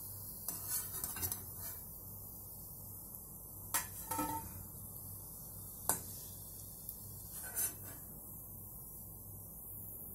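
Perforated steel spatula clinking and scraping against a kadai and a steel bowl as fried chicken balls are lifted from the oil and tipped out: a run of separate metal clinks, the sharpest about six seconds in.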